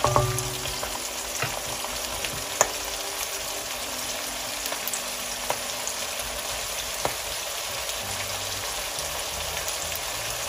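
Chopped onions frying in hot oil in a pan: a steady sizzling hiss with a few scattered sharp pops of spattering oil, as the onions are cooked towards light golden.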